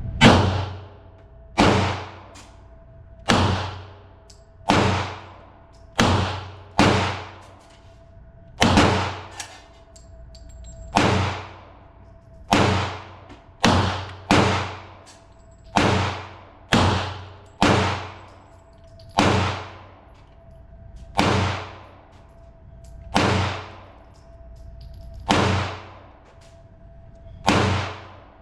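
A .40-calibre Glock pistol firing a long string of single shots, about twenty at an unhurried pace of roughly one every second or two, with a couple of quicker doubles.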